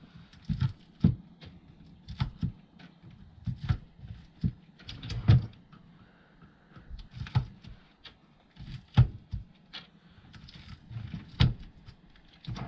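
A flathead screwdriver prying copper windings out of the slots of a ceiling fan motor's stator: irregular metallic clicks, scrapes and knocks, a dozen or so, with the sharpest about halfway in and twice near the end.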